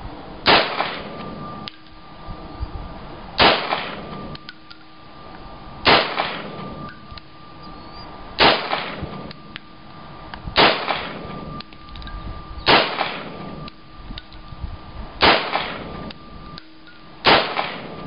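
Mauser C96 broomhandle pistol fired in slow single shots: eight sharp reports about two to two and a half seconds apart, each trailed by a brief ring.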